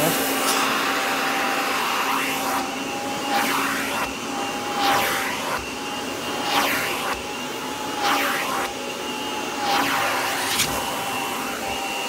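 Kirby G5 upright vacuum's motor running with the hose and upholstery tool attached. The suction sound swells with a whoosh about every second and a half as the tool is worked over fabric.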